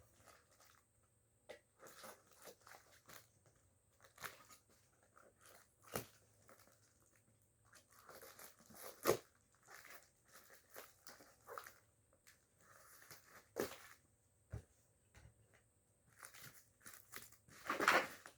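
Cardboard box and plastic packing of a parcel being opened by hand: scattered rustling, tearing and crinkling with sharp clicks and knocks, a louder burst of rustling near the end.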